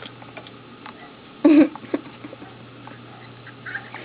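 A toddler's single short cough about one and a half seconds in, with a few faint clicks around it.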